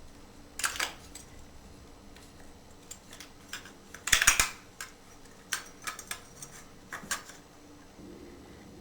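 Small metal and plastic shower-valve parts clicking and clinking as they are handled and fitted together, in scattered irregular clicks with the loudest clatter about four seconds in.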